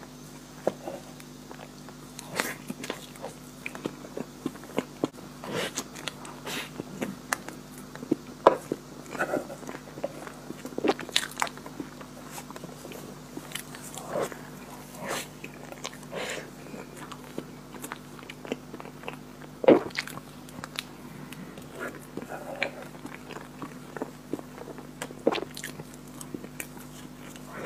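Close-miked eating of chocolate ice cream cake: irregular sharp, wet mouth clicks of biting and chewing, a few every second.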